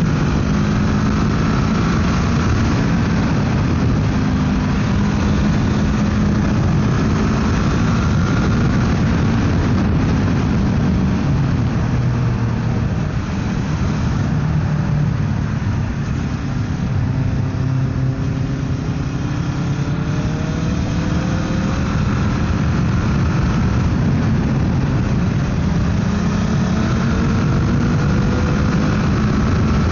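Motorcycle engine running steadily on the road, its pitch drifting gently up and down with the throttle, over a constant rush of wind and road noise.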